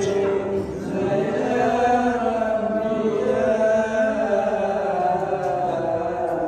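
Islamic devotional chanting: voices holding long, drawn-out notes that slide slowly up and down in one continuous line.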